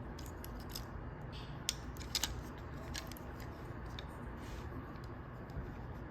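Plastic parts of a Studio Series 96 Ratchet Transformers figure clicking as they are handled and tabbed together during its transformation: a few sharp clicks, the loudest cluster about two seconds in, over a steady low hum.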